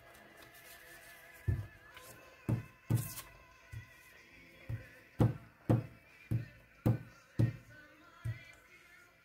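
A series of dull thumps, irregular at first and then about two a second, as a glue stick is worked over a small piece of paper on a wooden desk, with soft background music underneath.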